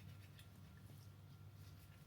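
Near silence: a steady low room hum with a few faint, scattered ticks.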